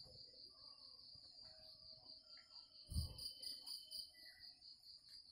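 Faint, steady insect chirring: a high, evenly pulsing trill. A brief low thump comes about three seconds in.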